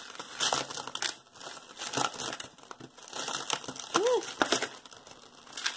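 Plastic crinkling and rustling as it is handled, with small irregular clicks and taps from a long metal jewelry chain being pulled out and gathered up.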